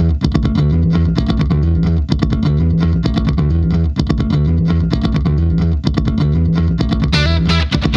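Music with a heavy bass line, guitar and a steady beat, with brighter high notes coming in about seven seconds in.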